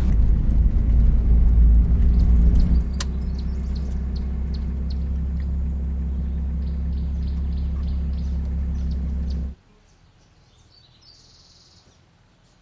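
A car driving: a steady low rumble of engine and road noise, a little louder for the first three seconds, that stops abruptly about nine and a half seconds in. Quiet outdoor air follows, with a brief high bird chirp.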